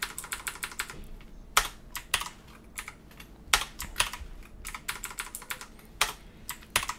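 Computer keyboard typing: keys tapped irregularly in short runs with pauses between them, a few keystrokes louder than the rest.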